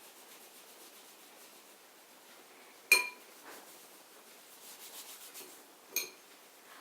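Two sharp clinks of hard kitchenware, each ringing briefly, about three seconds apart, the first louder, with faint rubbing and handling between them.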